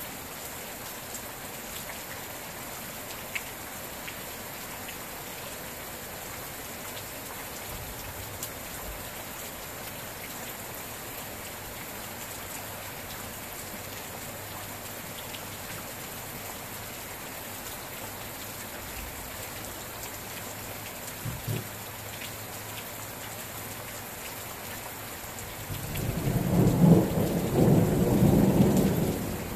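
Steady rain falling, with a loud low rumble of thunder near the end that lasts about three seconds.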